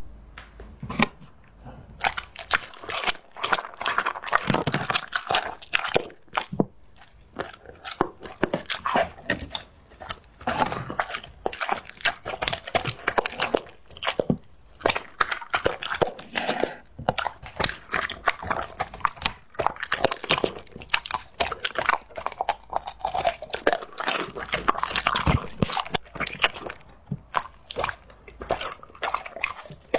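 A dog chewing and crunching on a large bone, with frequent irregular sharp cracks and crunches as its teeth grind the bone, close to the microphone.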